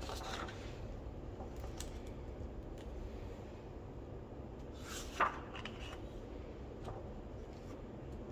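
Picture book pages being turned by hand: faint paper rustling and handling over a steady low hum, with one louder, brisk page flip about five seconds in.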